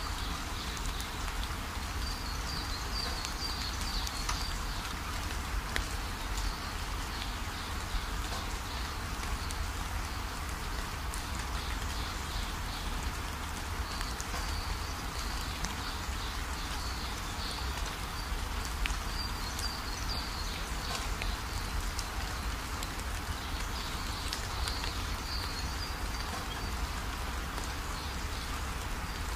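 Steady hiss of rain and a wet road heard from inside a moving car, over a constant low rumble, with brief high chirps coming and going.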